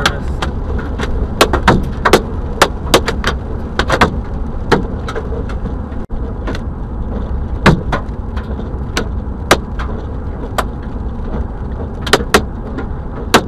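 Hailstones hitting the car's windshield and body as scattered sharp knocks, irregular and up to a few a second, over the steady low rumble of the car driving on a wet road, heard from inside the cabin.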